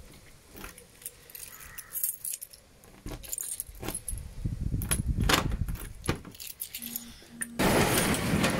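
Bunch of keys jangling and clicking in the lock of a metal garage door as it is unlocked, with scattered clicks and knocks. About a second before the end a loud, sustained noise starts, the metal door beginning to move.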